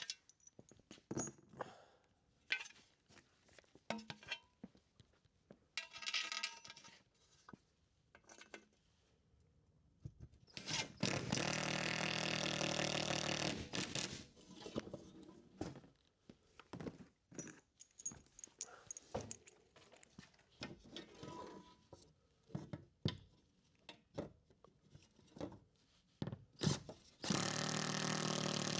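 A power drill driving screws in two runs of about three seconds, the second near the end. Between them come scattered clicks, knocks and scrapes of screws and hardware being handled.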